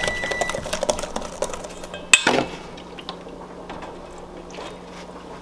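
Wire whisk stirring cornbread batter in a stainless steel mixing bowl: rapid clinks and scrapes against the metal, ending in one sharp knock a little after two seconds in, followed by quieter handling noise.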